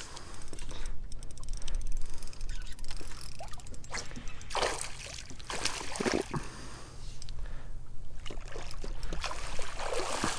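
Water sloshing and splashing against a small fishing boat, in several short loud swells, over a steady low hum.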